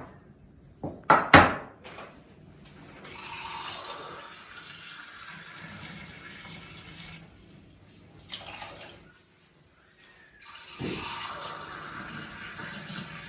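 Water running from a tap in two steady stretches, with a brief stop between them. A few sharp knocks come about a second in.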